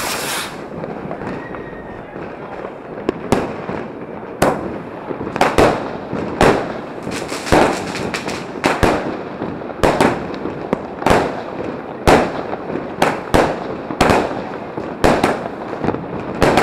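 Thundering Heaven 25-shot firework cake: the lit fuse hisses for about three seconds, then the cake fires a rapid barrage of loud bangs, roughly one every half second to a second, each trailing off briefly.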